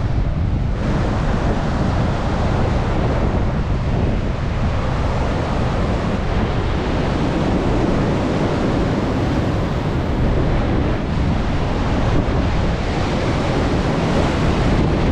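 Heavy storm surf on the Baltic Sea in a strong gale, with the wind buffeting the microphone: a loud, steady rush of noise over a heavy low rumble.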